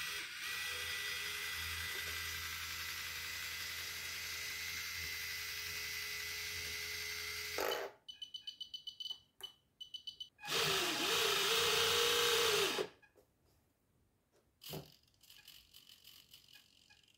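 Small electric drive motors of a radio-controlled model battleship turning its gun turrets: a steady whir for about eight seconds, then a rapid ticking for about two seconds, then a louder whir of about two seconds with a wavering pitch, after which it goes mostly quiet apart from a few faint clicks.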